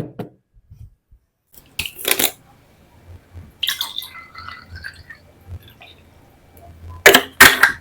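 Several sharp knocks and clinks of tableware being handled, with a few scattered ones and then the two loudest close together near the end.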